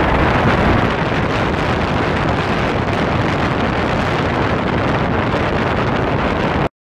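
Strong wind buffeting the microphone, a loud, steady rush. It cuts off suddenly near the end.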